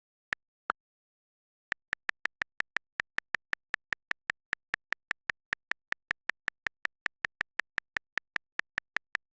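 Keyboard click sound effect: two single clicks, then a fast, even run of identical clicks, nearly six a second, starting about two seconds in.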